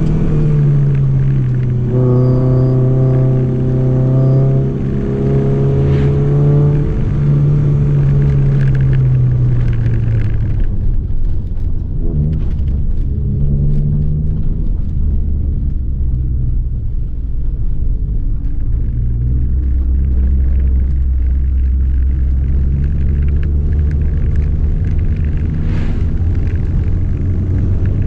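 Honda Civic Nouva's four-cylinder petrol engine heard from inside the cabin, pulling in second gear. The engine note holds high for several seconds, drops about a third of the way in, and then runs lower and steadier with a rumble.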